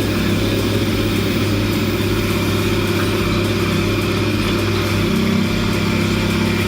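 Heavy machine's diesel engine running steadily at an even pitch and level.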